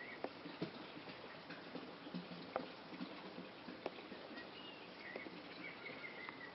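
Water trickling with irregular drips and small plops, with a small bird chirping faintly several times in short high notes, mostly in the second half.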